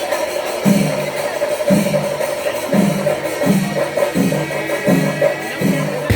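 Kerala temple festival percussion music: drums struck in a steady beat about once a second, with cymbals shimmering and a steady held note running through.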